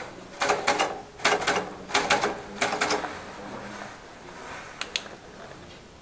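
Keys of an Optima typewriter struck in quick runs, the type bars clacking in four short bursts over the first three seconds, then two single clacks near five seconds.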